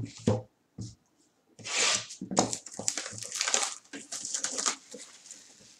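Plastic shrink-wrap being torn off a sealed box of trading cards and crinkled in the hands, a dense crackling for about three seconds. A few soft knocks of the box being handled come just before.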